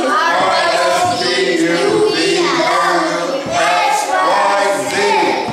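A group of children singing together in unison, unaccompanied, with held notes.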